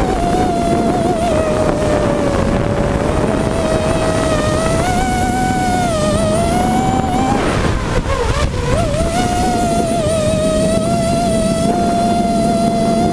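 Hexacopter's six Robbe 2216 brushless motors and propellers whining, heard from the onboard camera with a rush of air noise. The pitch wavers with throttle, drops sharply about eight seconds in, then climbs back to a steady whine.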